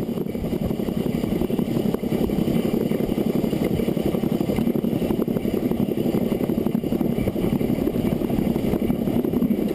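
Narrow gauge steam locomotive No. 4 Loch, a Beyer Peacock 2-4-0 tank engine, running at a good pace. Its exhaust beats come rapidly and evenly, mixed with the running noise of the wheels on the rails, steady throughout.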